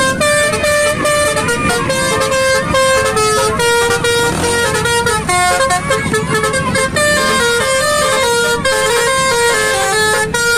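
Basuri telolet horn, a multi-tone musical vehicle horn, playing a tune of short held notes that step up and down in quick succession.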